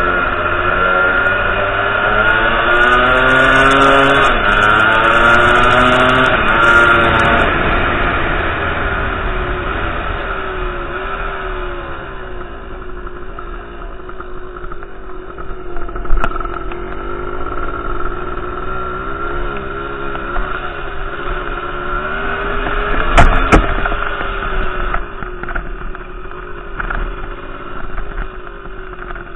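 Motorcycle engine heard from a helmet-mounted camera, its revs rising and falling repeatedly as it rides. It is loudest for the first several seconds, then runs lower, with a couple of sharp knocks later on.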